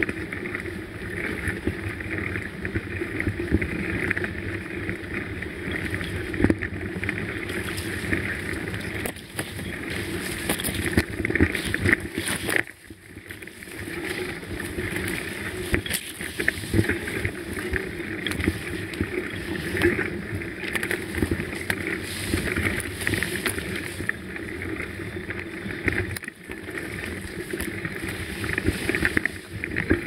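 Mountain bike rolling over a rough dirt singletrack, heard through a camera mounted on the bike: a constant rattle and knocking of the bike with tyre and trail noise, easing briefly about halfway through.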